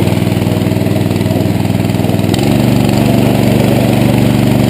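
Small single-cylinder gasoline engine running steadily; a little over two seconds in its note shifts and it gets slightly louder.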